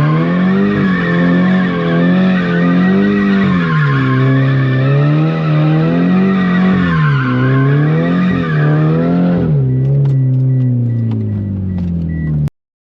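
A Nissan 350Z's V6 engine revving up and down repeatedly while its tires squeal. About nine and a half seconds in the squeal stops and the engine settles to a lower, falling note, then the sound cuts off abruptly just before the end.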